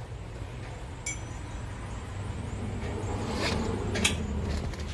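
A single metallic clink with a brief ring about a second in, then a couple of softer knocks, over a steady low hum.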